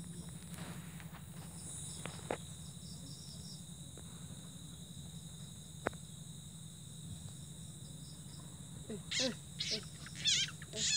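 Night insects trilling steadily in high, continuous tones over a low steady hum. Near the end come a few short, louder sounds.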